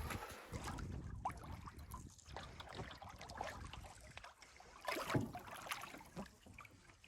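Canoe paddles dipping and pulling through lake water, with irregular splashes and drips between strokes.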